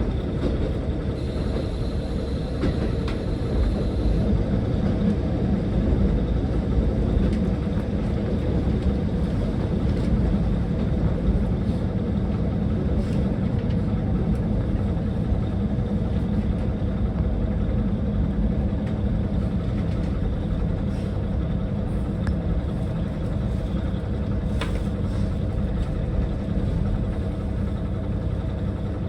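Steady low rumble of a diesel railcar's engine and running gear, heard from inside the train.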